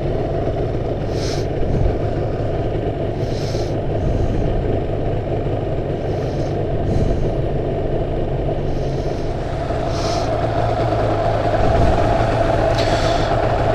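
Yamaha R1-Z's two-stroke parallel-twin engine running steadily through its rebuilt expansion chambers and silencers, with no exhaust leak and none of the popping exhaust note.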